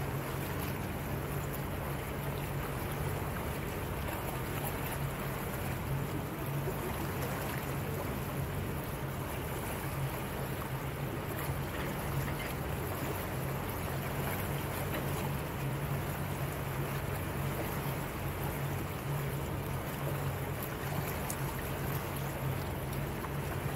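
Motorboat engine running at a steady speed, with water rushing past the hull; it stays even throughout.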